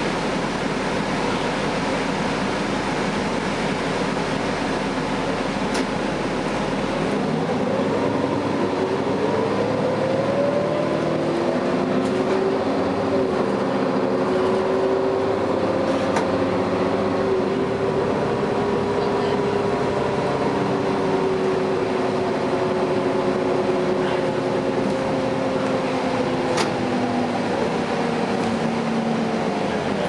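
Interior sound of a 2011 Gillig Advantage transit bus with a Cummins ISL9 diesel and Allison B400R automatic transmission pulling away from a stop: a steady engine drone, then a whine that rises in pitch from about eight seconds in as the bus accelerates and holds steady at cruising speed, easing down slightly near the end.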